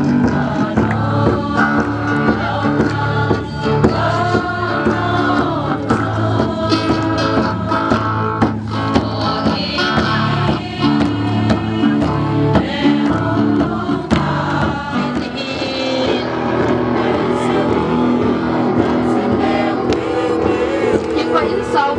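A group of men and women singing together, with a large barrel drum beaten in time.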